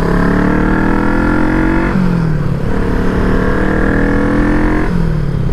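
Small two-cylinder motorcycle engine accelerating under the rider. Its pitch climbs, drops at a gear change about two seconds in, climbs again and drops at another upshift near the end.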